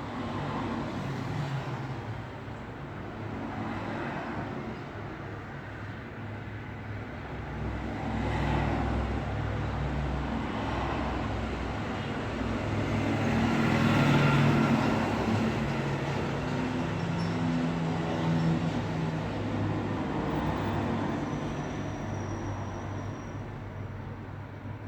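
Road traffic: a continuous rumble of tyres and engines as vehicles pass one after another. The sound swells with each passing vehicle, the loudest a little past the middle.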